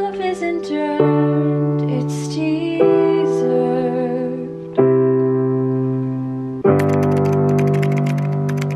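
A woman singing slowly over sustained chords on a digital piano, a new chord struck about every two seconds.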